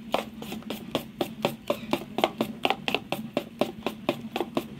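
Whisk beating thick gram-flour batter in a steel bowl: a steady run of quick taps against the bowl, about five a second, with the wet slap of the batter.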